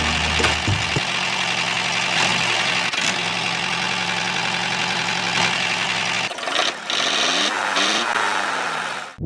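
A small mini-tractor engine running steadily. About six seconds in the sound changes, with its pitch gliding up and down.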